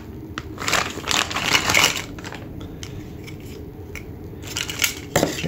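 Clear plastic bag crinkling and rustling as a wiring harness is pulled out of it, loudest in the first two seconds, then softer handling noises with one more short rustle near the end.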